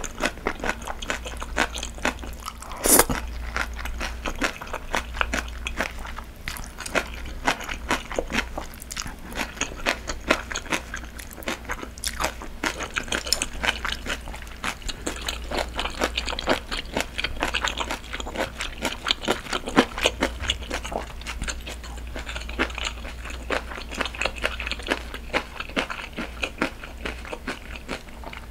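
Close-miked eating of spicy steamed monkfish with thin wheat noodles: slurping noodles and chewing, with crunchy bites and many small wet mouth clicks throughout. One louder sharp click comes about three seconds in.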